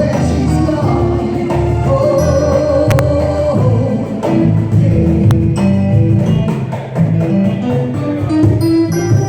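Live band playing a song with a singer, sustained melody notes over a moving bass line.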